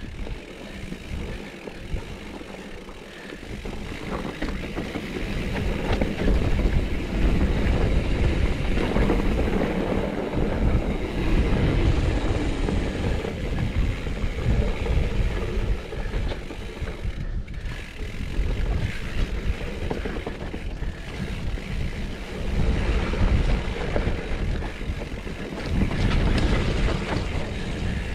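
Mountain bike riding down a steep, rough dirt trail: a steady rumble of tyres over the ground, with the bike clattering and rattling over bumps. It grows louder about four seconds in.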